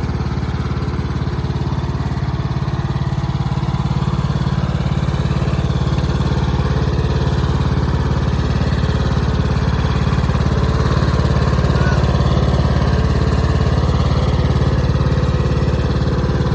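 Riding lawnmower's engine running steadily with an even, low hum and no change in speed.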